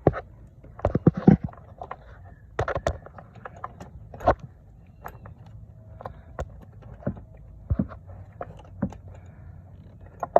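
Hand tools clinking and knocking together as a 3/8 ratchet, extension and socket are handled: irregular sharp metallic clicks and clanks, loudest in a cluster about a second in and again near three and four seconds.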